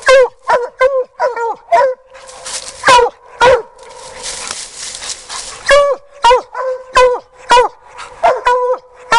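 Hound barking treed at the base of a tree: a run of sharp, loud barks, each dropping in pitch, coming one to two a second. There is a pause of about two and a half seconds near the middle, then the barking picks up again, faster.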